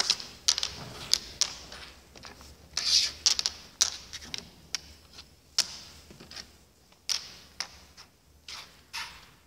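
Draughts pieces being set down and pushed into place on a wooden draughts board while the position for a game is laid out: irregular sharp clicks, coming thick and fast in the first four seconds and more sparsely after.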